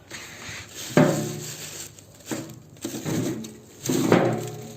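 Handling sounds: several separate bursts of rustling and scraping, loudest about a second in and again about four seconds in.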